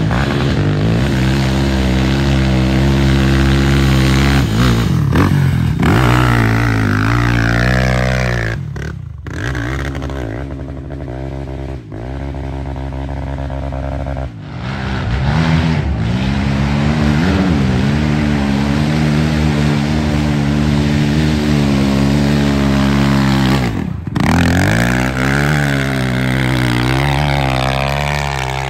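Racing ATV engines revving hard as the quads climb a steep dirt hill. The pitch rises and falls as the throttle is worked. The sound breaks off abruptly three times between runs.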